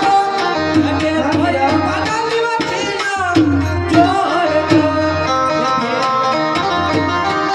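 Live amplified Indian folk devotional music: a man singing with sliding, ornamented notes over a hand drum beating a steady rhythm and held notes from a keyboard instrument.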